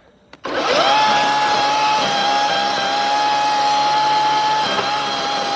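A small electric motor starts about half a second in, whines briefly up to speed, then runs with a steady high-pitched whine, with a short dip near the end.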